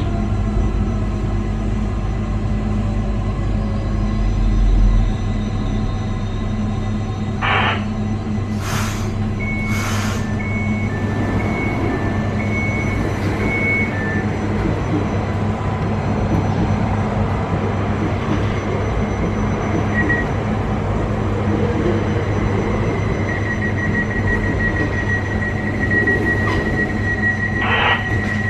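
Interior of a Newag Impuls 2 electric multiple unit standing at a platform: its equipment and ventilation hum steadily, with a few clicks about eight seconds in. An alternating two-tone beeping follows for a few seconds, and near the end a fast run of beeps on one tone, the door-closing warning just before departure.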